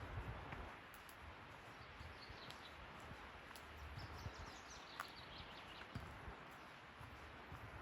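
Quiet forest ambience: soft footsteps on a trail and a few short, high bird chirps over a faint steady hiss.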